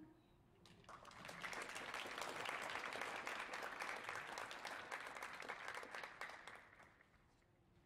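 Audience applauding, building about a second in and dying away near the end.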